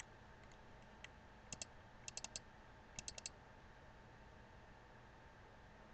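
Faint computer mouse clicks: a few single clicks, then quick double-clicks, a pair and two runs of four, over a low steady hiss. The clicks stop about three and a half seconds in.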